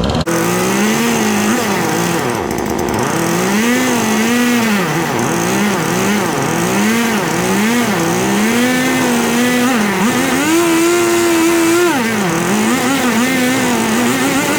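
Small two-stroke chainsaw engine running and being revved over and over, its pitch rising and dipping with the throttle, holding steady at high speed for a couple of seconds around the middle.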